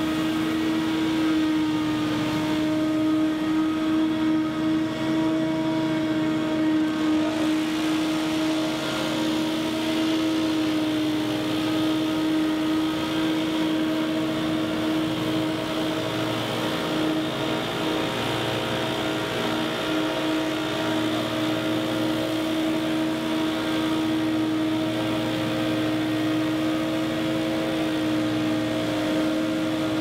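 Scag Windstorm stand-on leaf blower running steadily, a constant engine-and-fan whine over rushing air, with backpack leaf blowers running alongside.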